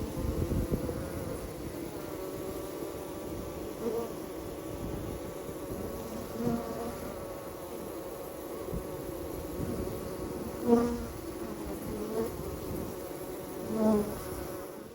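Honeybees buzzing at a beehive entrance close to the microphone: a steady hum of many bees, with single bees flying right past the microphone several times, each swelling briefly in loudness, the loudest about eleven seconds in.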